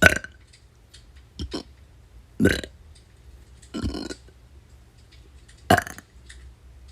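A person burping on demand: a series of short burps, about one every second or so, the first and last the loudest.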